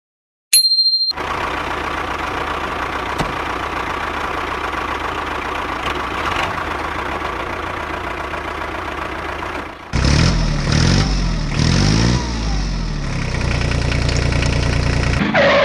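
An engine sound from a model RC tractor, first running steadily, then louder with rising and falling pitch from about ten seconds in. It is preceded by a short high beep near the start and cuts off just before the end.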